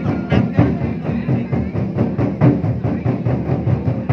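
Lion-dance percussion: a big drum beaten in a fast, steady rhythm with other percussion struck along with it.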